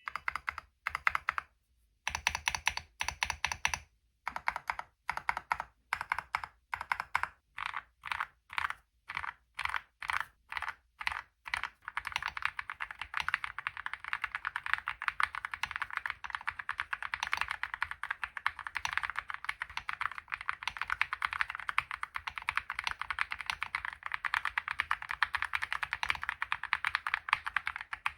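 Typing on a Leobog Hi75 mechanical keyboard with KTT Kang White linear switches and thick PBT MOA-profile keycaps. Separate short runs of keystrokes come first, and from about twelve seconds in it turns into fast, continuous typing.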